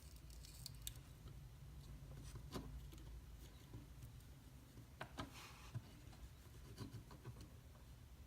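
Faint scattered clicks and rubbing from hands handling plastic zip ties and a small die-cast toy truck, over a low steady room hum.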